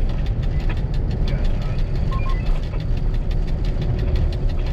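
M62 diesel locomotive's two-stroke V12 engine running steadily with a heavy, knocking rumble, heard from inside the cab while the locomotive moves along the track.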